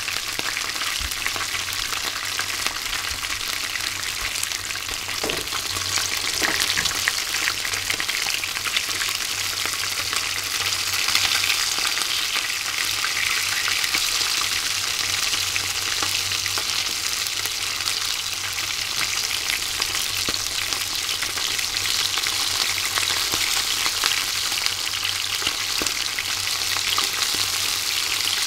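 Chika (Japanese surf smelt) deep-frying bare in hot oil without batter, a steady, dense crackle and sizzle of many fine pops.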